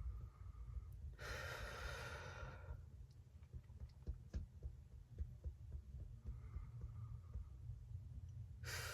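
A woman breathing deeply: one long, airy breath about a second in, and another beginning near the end.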